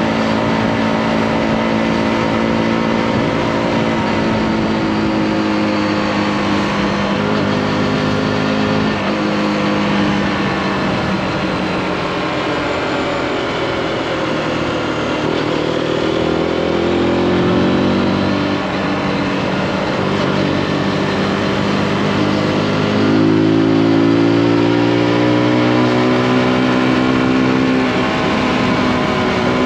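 Zontes G1's single-cylinder four-stroke engine pulling at road speed. It drops in pitch about halfway through as the bike slows for a bend, then climbs again in steps as it accelerates. Wind rush runs under the engine throughout.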